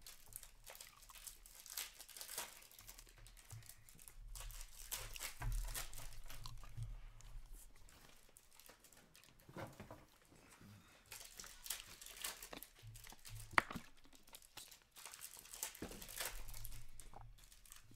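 Trading-card packs and cards being handled on a table: soft, irregular crinkling and tearing of pack wrappers and rustling of cards, with one sharper click about three-quarters of the way through.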